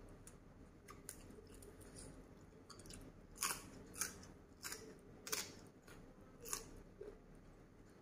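A person chewing spicy seafood salad, with wet mouth smacks; about five sharp smacks come close together in the middle.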